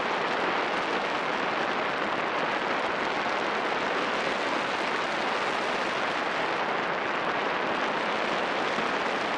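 Steady rush of air over the microphone of a camera flying with a paraglider, an even hiss with no breaks.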